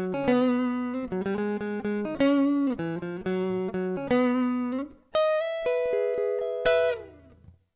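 1995 Fender American Standard electric guitar being played: a run of picked notes and chords, some bending slightly in pitch. A final chord rings from about five seconds in, drops in pitch near the end and dies away.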